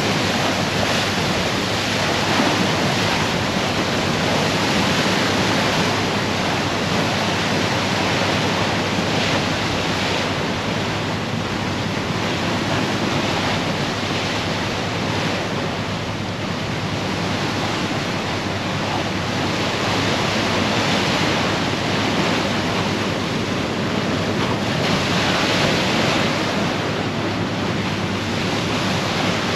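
Sea water rushing along the bow of a moving icebreaker sightseeing ship, with wind on the microphone: a steady, loud rush with a low, even hum beneath.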